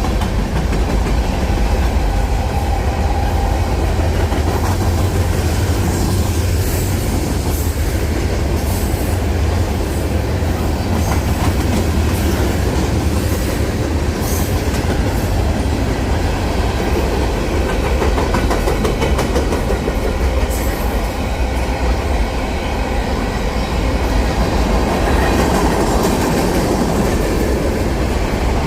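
Union Pacific train rolling past with a steady, loud rumble of wheels on rail and rhythmic clickety-clack, plus short high-pitched metallic squeaks now and then through the middle.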